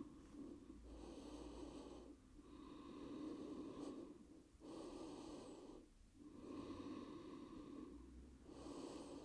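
A person's faint, slow breathing, in and out, each breath lasting about one and a half to two seconds.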